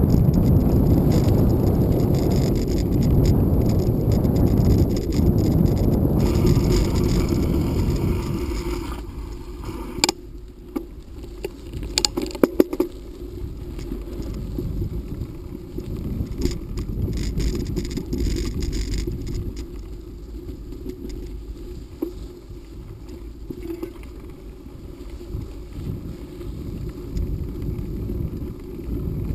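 Bicycle rolling along a dirt forest road: a steady rumble of tyre and road noise, loud for the first eight or nine seconds and then quieter, with a few sharp rattling clicks as the bike goes over bumps about ten and twelve seconds in.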